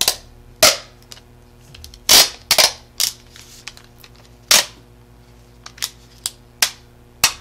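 Clear packing tape being pulled off its roll and peeled from foam board in a dozen or so short, sharp rips, spaced irregularly.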